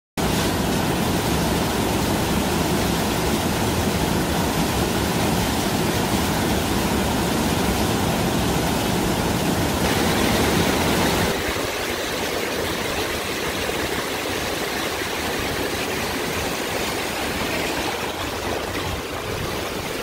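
Steady rush of a small mountain waterfall splashing into a rocky pool. About eleven seconds in, it changes to the lighter rush of a shallow stream running over stones, with less low rumble.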